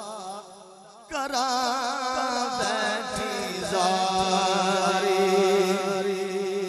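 A man singing a Saraiki devotional kalam into a microphone: a long, drawn-out vocal line with heavy vibrato, coming in about a second in after a short dip, over a steady low drone.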